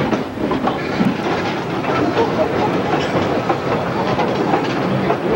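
Narrow-gauge train cars rolling along the track, heard from aboard: a steady rumble of running gear with irregular clicking and clacking of wheels on the rails.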